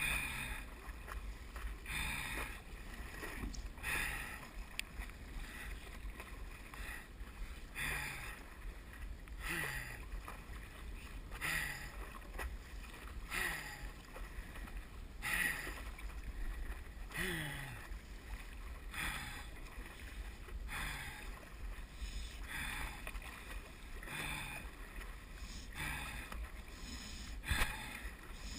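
Stand-up paddle blade catching and pulling through the water in a steady rhythm, about one stroke every two seconds, over a low steady rumble.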